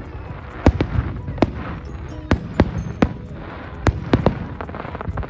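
Aerial fireworks exploding: about eight sharp bangs at irregular intervals over a continuous low rumble.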